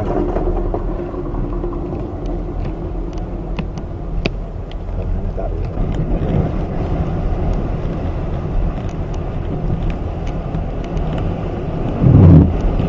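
Strong typhoon wind buffeting the microphone as a steady low rumble, with one louder gust about twelve seconds in.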